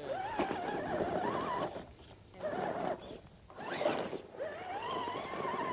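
Axial Jeep Wrangler RC crawler's small electric motor and geared drivetrain whining in throttle spurts, the pitch rising and falling with motor speed. There are several short spurts with brief gaps, then a longer rising one near the end.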